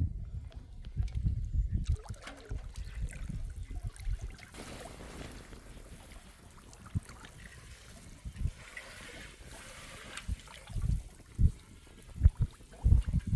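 Water splashing and trickling as someone moves and handles gear in shallow water, with heavy low thumps at the start and a few sharp low knocks near the end.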